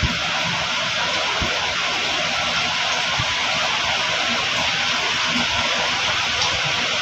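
Steady hiss of background noise, with a few faint low knocks.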